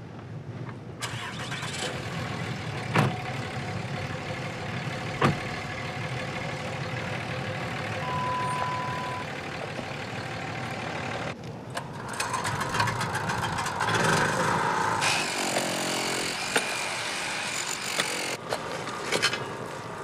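Vehicle engine running steadily as it drives, with a few sharp knocks and rattles; the sound changes abruptly about halfway through and again near the end.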